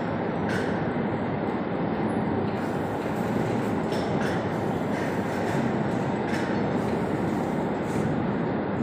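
Cement-bag loading conveyor machinery running with a steady, loud rumble, with a few short knocks as filled cement bags come off the chute and are dropped onto the stack.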